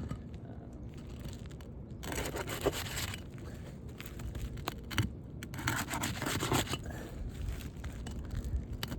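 Brittle asphalt shingles scraping and rubbing as sealed tabs are worked loose. It comes in two rough spells of about a second each, with lighter scuffs between them.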